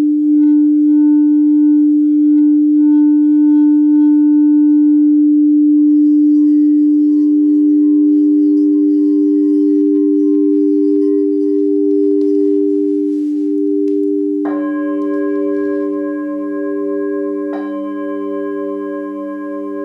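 Frosted quartz crystal singing bowls ringing: one steady low tone, joined about six seconds in by a second, higher bowl tone that pulses. About two-thirds of the way through, a bowl is struck with a mallet, adding a deeper tone and higher ringing overtones, and another strike follows about three seconds later.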